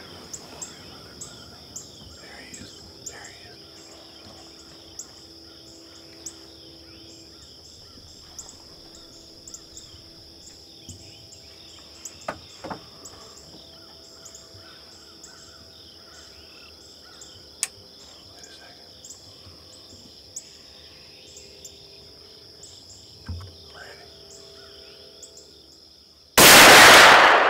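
A hunting gunshot near the end: a single very loud blast that fades off. It follows a quiet outdoor background with a steady high-pitched hum and scattered faint clicks.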